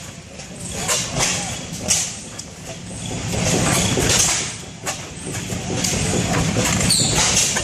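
Antique stationary hit-and-miss gas engines running, firing with irregular sharp pops over a low steady rumble. A brief high falling squeak comes near the end.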